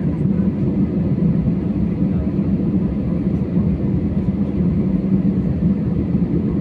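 Steady low rumble of an Airbus A320's cabin noise, its jet engines running at low power while the aircraft is on the ground, heard from inside the passenger cabin.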